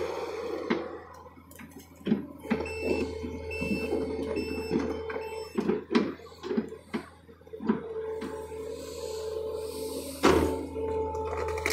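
John Deere excavator working: the diesel engine runs steadily under a whine that comes and goes, with a string of knocks and clunks and a few short beeps. The loudest knock comes about ten seconds in.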